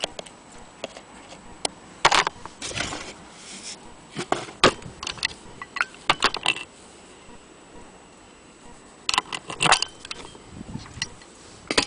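Brass anniversary-clock parts being handled: the disc pendulum and movement knocked and turned, making irregular clusters of sharp metallic clicks and clinks, about 2 s in, again from about 4 to 7 s, and at about 9 to 10 s.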